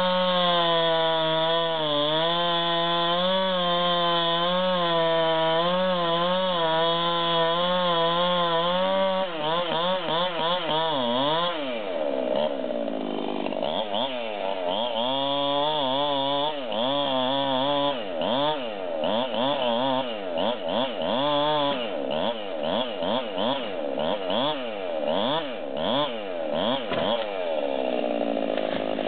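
Husqvarna 390 XP two-stroke chainsaw bucking a felled log: held at full throttle, steady in the cut, for about nine seconds, then revved up and down over and over in quick succession, dropping back lower and steadier near the end.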